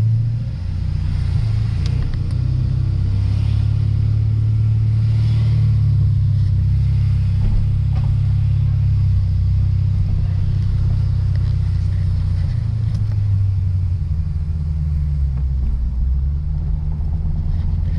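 Lexus RC F's 5.0-litre V8 running at low revs while the car cruises slowly, a steady low drone with small changes in pitch.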